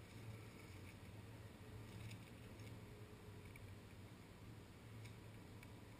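Near silence: a faint steady low hum with a few faint ticks.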